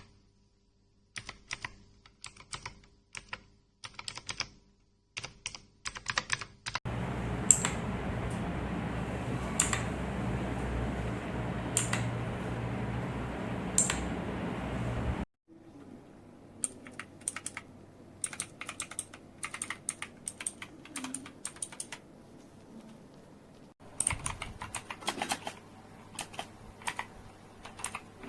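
Typing on a mechanical keyboard with clicky blue switches: irregular runs of sharp key clicks. For several seconds in the middle, a loud steady noise sits under the keystrokes and then cuts off suddenly.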